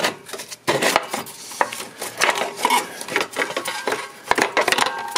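Thin aluminium exhaust-manifold heat shield being worked into place by hand, scraping and clanking against the surrounding engine metal in a run of irregular knocks and rubs.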